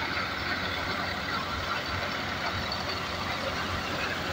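Tractor-driven grain thresher threshing pearl millet: the tractor's engine runs steadily under load, turning the thresher by a flat belt, in an even, unbroken machine noise.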